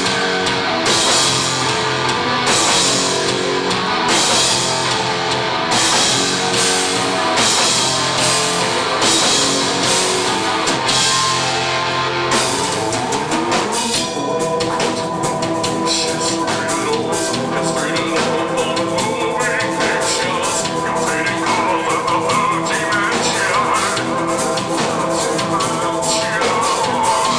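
Nu-metal band playing loud and live: drum kit, guitars and bass. The cymbal crashes land about every second and a half at first, and the song shifts into a denser, steadier section about halfway through.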